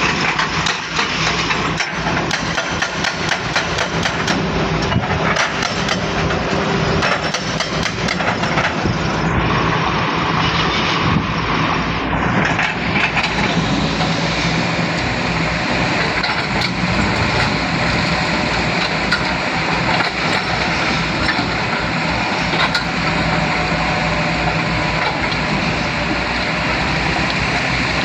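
Volvo excavator's diesel engine running steadily while the machine works, with a run of sharp clicks and knocks during the first third.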